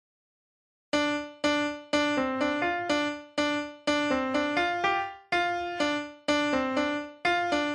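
Silence for about the first second, then a solo piano-like keyboard melody: single struck notes about two a second, each dying away.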